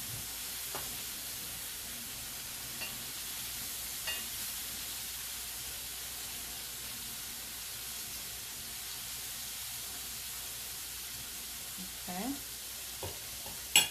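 Shrimp frying in hot oil in a pan, a steady sizzle, with a few faint clicks as they are turned and one sharp clack near the end.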